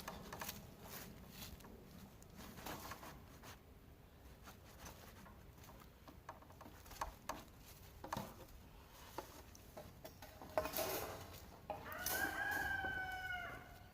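A rooster crowing once near the end, one long call of a little under two seconds that sags in pitch at its close, over scattered faint clicks and knocks.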